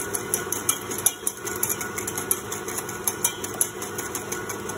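Wire whisk beating eggs and sugar in a stainless-steel bowl, its wires clicking irregularly against the metal, over the steady hum of an electric mixer beating egg whites into meringue.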